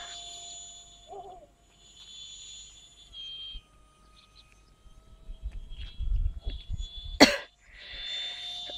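Distant whine of a model jet's 64 mm electric ducted fan, a thin high steady tone that fades in and out as the plane flies about. Low rumbling on the microphone in the second half and one short sharp burst about seven seconds in.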